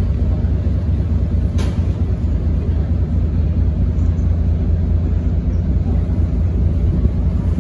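Ferry's engine running with a steady low rumble as the boat crosses the harbour, with water and wind noise over it. There is one brief click about one and a half seconds in.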